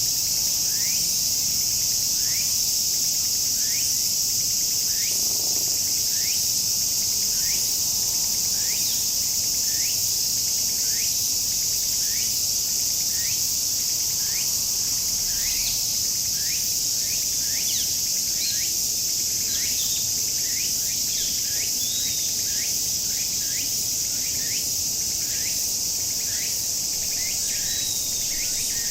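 Cicadas buzzing in a dense, steady chorus, a continuous high sizzle. Over it come short rising chirps, repeated about once a second and more often in the second half.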